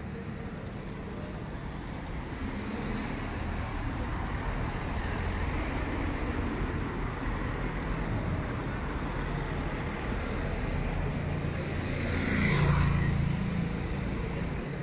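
Street traffic: car engines running as cars drive by. One passes close about twelve seconds in, the loudest moment, then fades.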